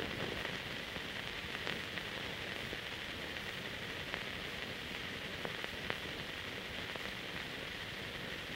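Steady hiss with a few faint scattered clicks: the surface noise of an old film transfer with no recorded sound.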